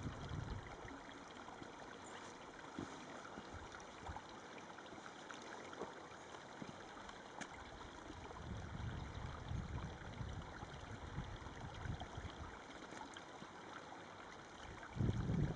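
Shallow desert creek trickling and gurgling faintly over rocks, with some low rumbles in the second half and a louder noise just before the end.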